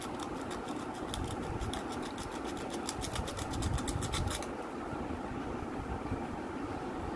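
Sandpaper rubbed quickly back and forth over a small electric motor's metal clamp to scour it clean, a rapid scraping of about five or six strokes a second that stops about four and a half seconds in. A steady low machine hum runs underneath.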